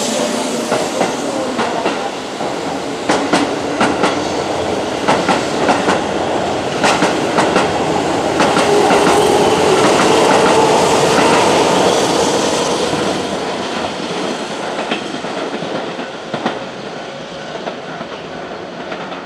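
Keihan 8000-series electric train running out of the station: wheels clatter over rail joints in quick clicks, with a motor whine that swells to its loudest about ten seconds in, then fades as the train draws away.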